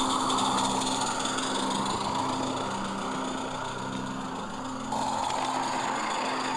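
Gas-fired live steam garden railway locomotive running along its track, a steady mechanical sound that changes abruptly about five seconds in.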